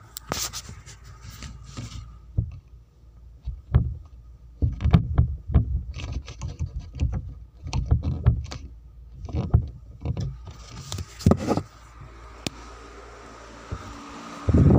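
Irregular muffled thumps and knocks with some rubbing, the sound of a phone being handled and carried, its microphone close to cloth or a hand. A burst of louder knocks comes near the end.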